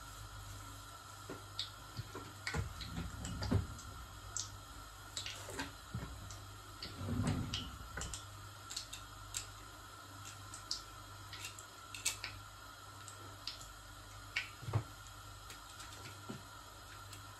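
Arancini shallow-frying in hot oil in a stainless-steel saucepan: scattered small pops and crackles of sputtering oil, with a few louder dull knocks in the first half.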